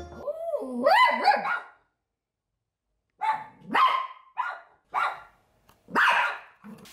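Toy poodle giving a wavering, whining cry that slides up and down in pitch, then after a pause barking about five times in short, sharp barks. She is barking at a doorway for the other dog of the house, who is out of sight.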